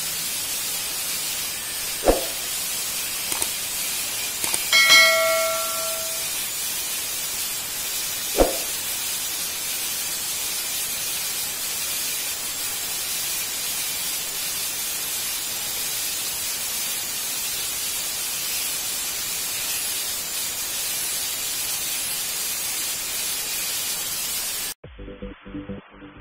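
Angle grinder converted into a drill, running at speed with a masonry drill bit in a concrete wall: a steady, high-pitched rushing whir. There are sharp knocks about two and eight seconds in and a brief ringing, bell-like tone around five seconds. The whir cuts off abruptly near the end.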